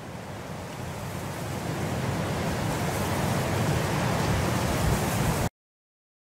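A rushing, wind-like noise that swells steadily louder for about five seconds, then cuts off abruptly.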